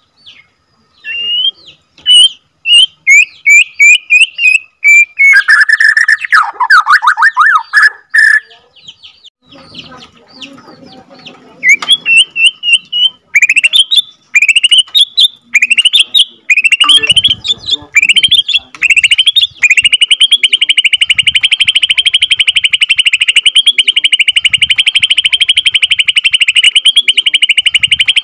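Bornean white-rumped shama (murai batu) singing: a run of short, loud rising whistled notes with some lower sweeping phrases, then about two-thirds of the way in a long, fast, unbroken rolling trill.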